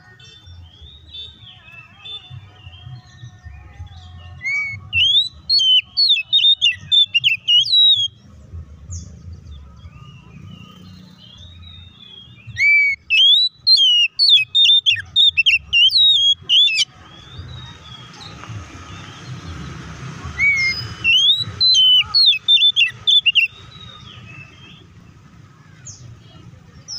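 Oriental magpie-robin singing full, loud song in three bursts of rapid, varied whistles and chattering notes that leap up and down in pitch. It is the excited 'fighting' song that keepers use to provoke other magpie-robins into singing.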